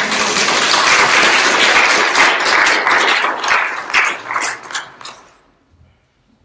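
Congregation applauding, thinning to a few last claps and dying away about five seconds in.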